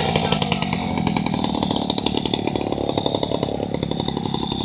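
Small petrol engine running steadily with a fast, even pulsing beat.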